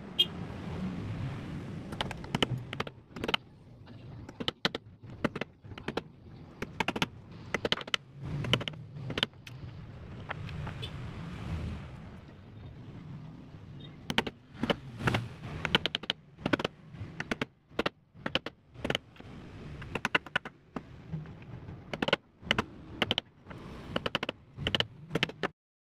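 Irregular sharp clicks and taps of steel clothes-hanger wire being handled and cut with end-cutting pliers against a small block of wood, over a low background rumble.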